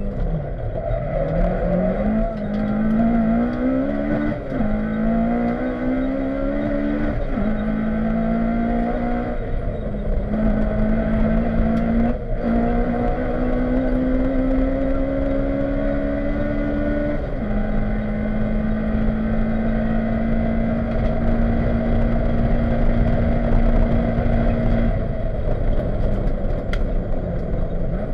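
Honda Civic rally car heard from inside the cabin at full stage pace. The engine climbs through the gears with several quick upshifts, holds a steady high drone with road and tyre noise underneath, then lifts off near the end.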